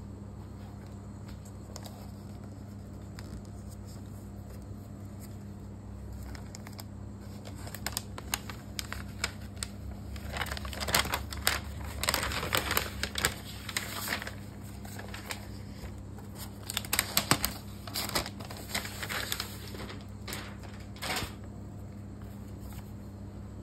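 Rustling and crinkling of the thin protective wrap being peeled and handled on a new MacBook Pro, mixed with small taps and clicks of fingers on the aluminium case. It begins about seven seconds in, comes in two busy stretches, and dies down near the end, over a steady low electrical hum.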